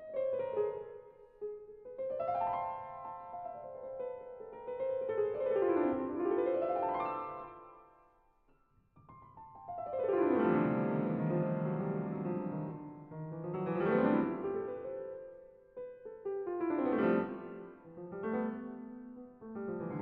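Solo grand piano playing sweeping runs that rise and fall. It dies away briefly about eight seconds in, then starts again with a long falling run.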